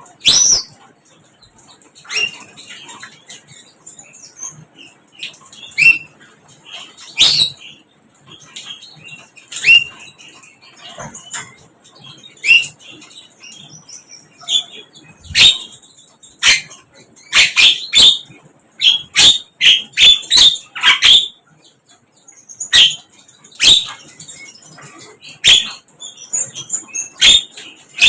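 A flycatcher (sikatan) giving short, sharp call notes at irregular intervals, with a quick run of calls about two thirds of the way through.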